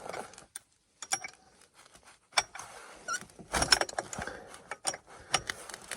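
Scattered metallic clicks and clinks, thickest a little past the middle, as a wrench works the jam nut on a snowmobile's secondary-clutch belt-tension adjuster to loosen it.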